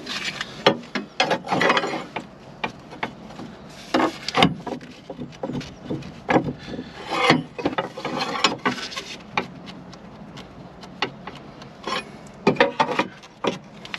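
Irregular clicks, knocks and scraping of metal parts being handled and worked by hand, as front suspension joints are checked for the play behind a clunk over bumps.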